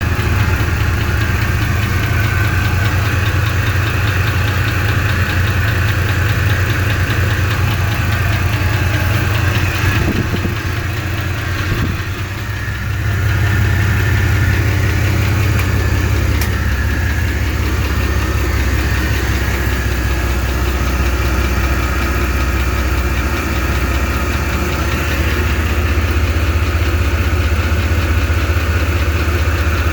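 1993 GMC 1500 pickup's engine idling steadily with a fast knocking, tapping noise running through it, a fault whose cause the owner doesn't know. The sound dips briefly and shifts lower about twelve seconds in.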